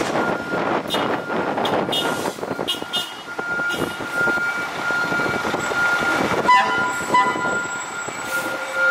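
Fire engines pulling out on a response, their diesel engines running under a steady high warning tone, with air horn blasts from about six and a half seconds in.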